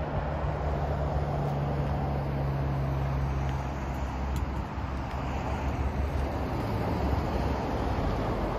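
Highway traffic: a steady rush of passing vehicles, with a low engine hum that fades out about halfway through.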